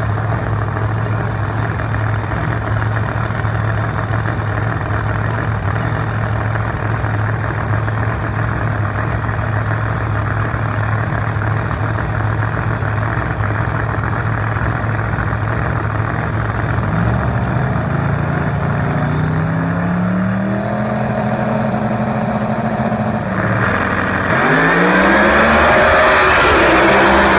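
Two drag-radial race cars, a supercharged big-block Chevy Camaro and a twin-turbo small-block Ford Mustang, idling at the starting line with a steady low drone, then revving with rising pitch from about two-thirds of the way in. Near the end they launch and accelerate hard down the track, the loudest part.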